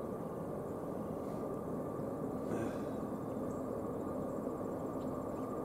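Low, steady rumble of distant approaching GE diesel-electric locomotives, with an even hiss over it.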